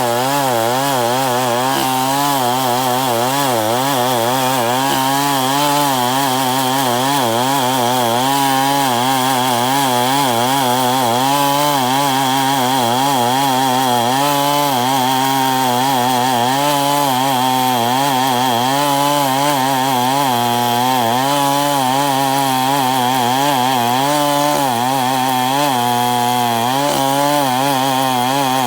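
Two-stroke chainsaw running under load, sawing through timber to cut boards, its engine pitch wavering up and down as the cut bogs and frees.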